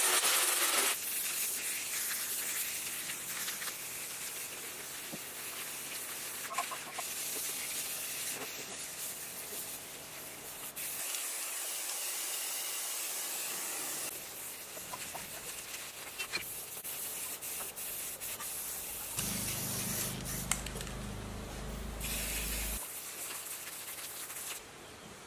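Aerosol spray-paint cans hissing through a series of spray passes. An angle grinder on sheet metal, the loudest sound, cuts off about a second in.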